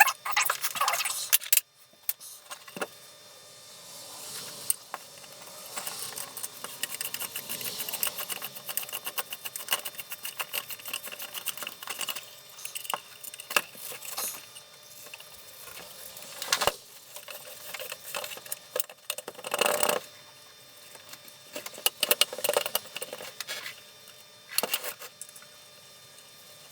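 Irregular clicks, knocks and scraping of small parts being handled while a Craftsman router is taken apart.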